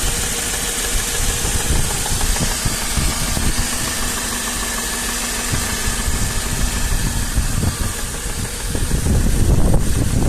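Mercedes-Benz M113 V8 idling after a cold start, with a knock in its running that the owner cannot yet explain. Near the end a louder rumbling noise comes in over the engine.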